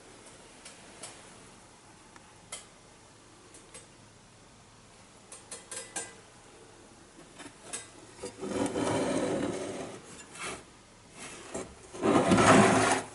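Old cast-iron Anchor No. 4 hand plane being handled: a few light clicks and knocks, then a longer scraping rub about eight seconds in and a louder one near the end as it is turned and slid on the table top.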